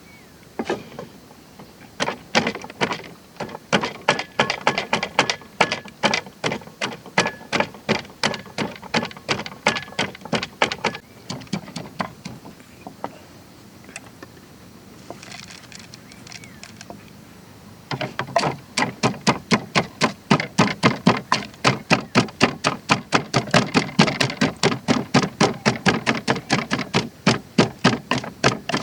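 Rhythmic knocking, about three sharp strokes a second, in two long runs: one from about 2 to 11 seconds in, and a second starting about 18 seconds in.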